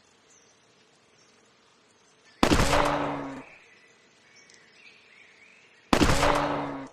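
Two pistol shots about three and a half seconds apart. Each is a sudden crack with a ringing tail of nearly a second. Birds chirp faintly between them.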